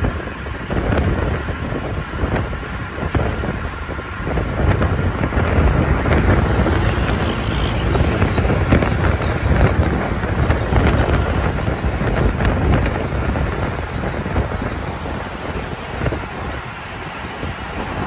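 Wind buffeting hard on the microphone, which is moving at riding speed alongside a road bike, gusting up and down. Road traffic can be heard underneath.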